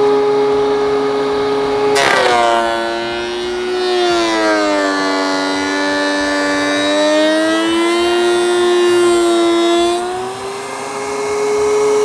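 DeWalt two-speed benchtop thickness planer running with a steady whine. About two seconds in, the cutterhead bites into a wood-and-epoxy board with a sudden rasp and the motor's pitch drops under the load of a shallow pass, just under 1/32 inch. Around ten seconds in the cut ends and the whine climbs back to its free-running pitch.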